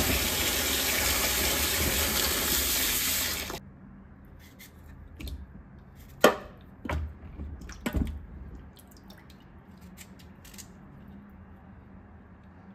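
Kitchen tap running into a water-filled plastic basin in a stainless steel sink, shut off suddenly about three and a half seconds in. After it, scattered clicks and small splashes, the sharpest about six seconds in, as peeled cassava pieces are handled in the water and pared with a knife.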